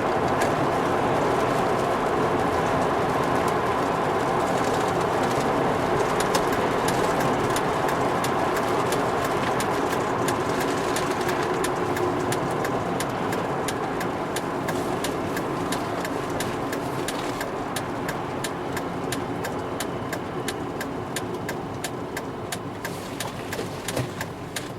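Volvo V70 T5's engine and road noise heard on the move, slowly dying down as the car slows, with many sharp clicks through the second half.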